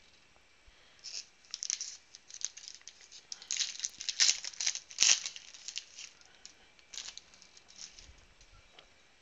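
Foil wrapper of a 2017 Panini Prizm football trading-card pack being torn open and crinkling. Crackles start about a second in and are loudest around the middle, with a sharp snap about halfway. They fade near the end.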